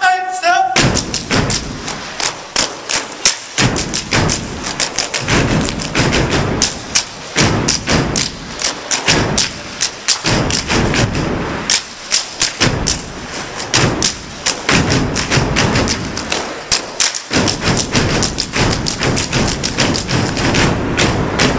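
Step team stepping in unison: fast rhythmic stomps, hand claps and body slaps on a stage floor, starting under a second in and running in tight patterns with short breaks.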